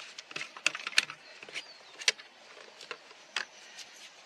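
Irregular sharp clicks and knocks of hands handling the chainsaw's fuel tank cap and a petrol can, in readiness to fill the empty tank.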